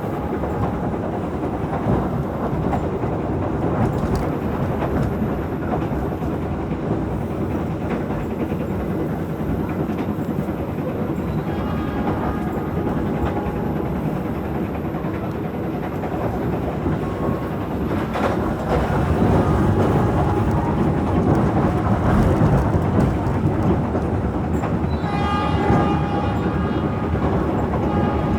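Passenger train of the KA Malabar running along the track: a steady rumble of wheels on rails with scattered clicks, growing louder about two-thirds of the way through. A short, steady tone sounds briefly twice, about twelve seconds in and near the end.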